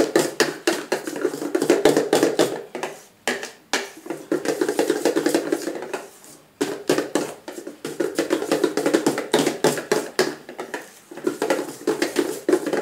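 Hand whisk beating thick cake batter in a stainless steel bowl: fast, rhythmic strokes with the wires clattering against the metal, broken by two short pauses, about 3 and 6 seconds in.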